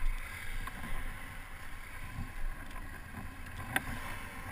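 Wind buffeting the microphone: an irregular low rumble with a broad rushing hiss, and a single sharp click near the end.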